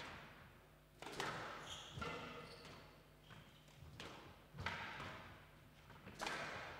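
Squash rally: the ball cracking off rackets and the walls of a glass court, about five sharp hits spaced irregularly, each with a short echo.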